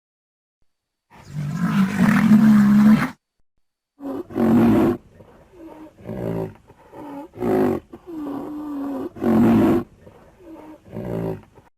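A rhinoceros calling: one long, deep bellow, then five shorter bellows about a second and a half apart, with fainter breathing sounds between them.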